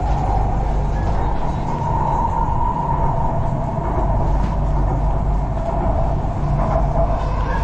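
Metro train running at speed, heard from inside the carriage: a steady rumble with a constant whine above it.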